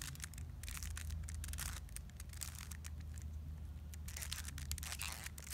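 Plastic Rubik's cube layers being turned in quick succession, a run of dry clicks and rasps as a middle-layer algorithm is performed.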